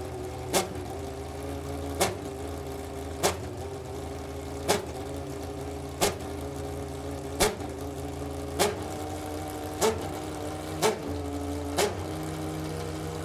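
Superleague Formula Panoz DP09B race car's 4.2-litre V12 engine idling steadily, with a sharp crack about every second and a bit, ten in all.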